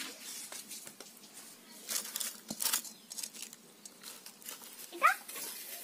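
Soft rustling and scraping handling noises, with a few brief louder scuffs, and a short rising chirp near the end.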